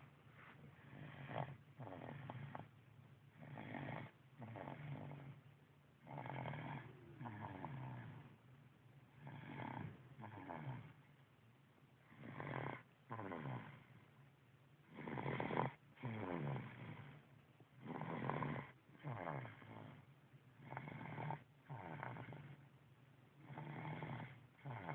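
Snoring: a regular series of snores, about one every second or two, often in pairs.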